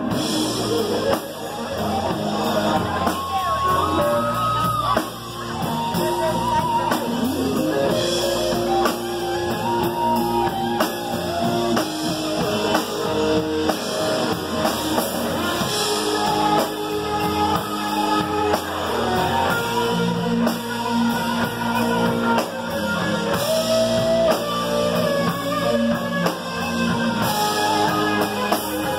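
Live band playing electric guitars over a drum kit, with a lead guitar line of sustained notes that bend in pitch.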